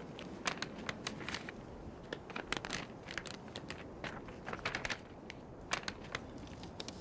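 Large paper topographic map rustling and crinkling in short, irregular crackles as it is unfolded and spread open.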